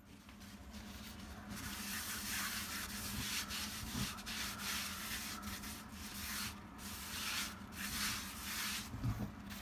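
Wad of paper towel rubbing oil around the inside of a hot Lodge cast iron skillet in repeated scratchy wiping strokes, re-oiling the pan to season it against rust.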